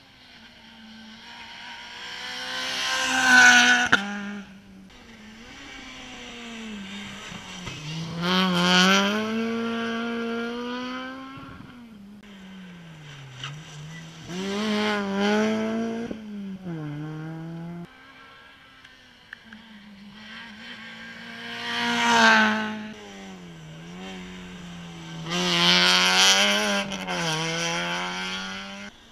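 Rally car engines revving hard and rising and falling in pitch through gear changes as cars drive the stage, the sound swelling loud about five times as they come close and pass.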